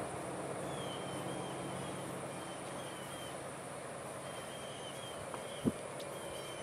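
Rural outdoor ambience: a steady low background noise with faint chirping repeated in short runs, and a single soft thump near the end.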